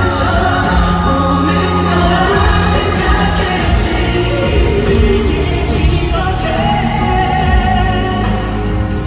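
Live K-pop concert music with singing, loud and continuous, recorded from the audience in an arena.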